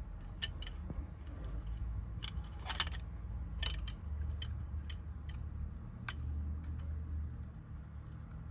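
Small metal lock wafers and parts from a Honda door lock cylinder clicking and tapping irregularly as they are handled and sorted, with a short cluster of clicks about three seconds in, over a steady low hum.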